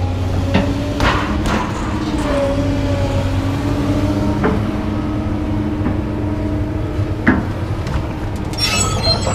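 An engine running steadily, with about five sharp metal clanks from scrap metal being unloaded, and a burst of rattling near the end.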